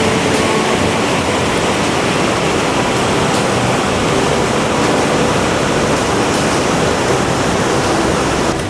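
Mountain stream rushing loudly and steadily over rocks, a constant roar of water.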